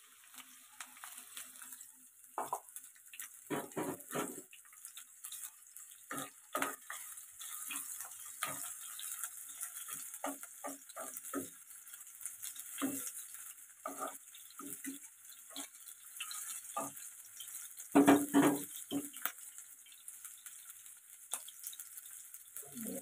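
Sliced garlic, shallots and chillies sizzling in hot oil in a non-stick wok, with a steady high hiss. A stirring utensil scrapes and knocks against the pan in irregular strokes, loudest about eighteen seconds in.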